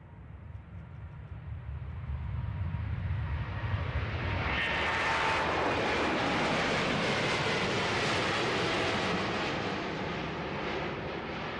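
Jet airliner's engines passing close by: a low rumble builds over the first few seconds into a loud roar with a high whine, which holds and then eases slightly near the end.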